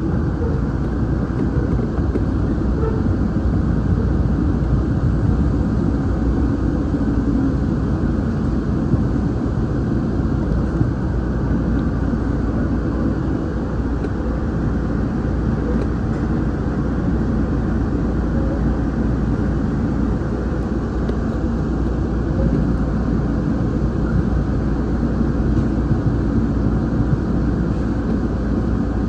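Siemens P2000 light rail vehicle running along the track, heard inside the driver's cab: a steady low rumble of the moving train that holds even throughout.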